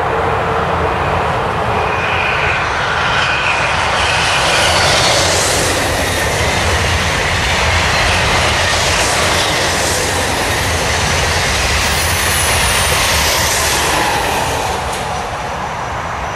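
Two coupled Thalys PBA high-speed trainsets passing on an electrified line: a steady rush of wheels on rail and air, building over the first few seconds and easing slightly near the end, with faint falling whines high up near the end.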